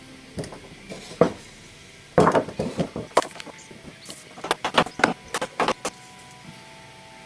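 Irregular wooden knocks and thuds as a heavy oak timber is handled and turned over, sparse at first, then coming thick and fast in two clusters through the middle.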